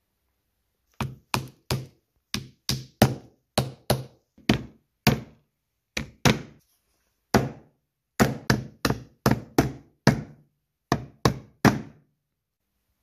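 Hammer tapping small nails into the wooden lid of a Ford Model T trembler coil box: about two dozen sharp knocks in short runs, each with a brief ring.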